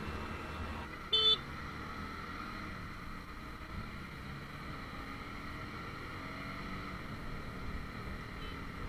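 Steady riding noise of a Honda CBR150R's single-cylinder engine and the rush of air while riding in light city traffic. About a second in comes one short vehicle horn beep.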